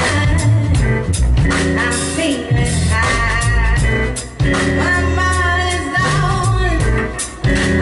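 A live jazz band playing a song: a woman singing over keyboard and drums, with deep bass notes.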